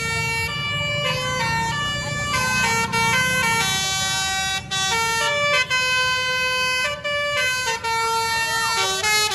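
Basuri multi-tone telolet bus horn playing a melody: a long run of held horn notes stepping up and down in pitch, with a few brief breaks between phrases, over a low rumble.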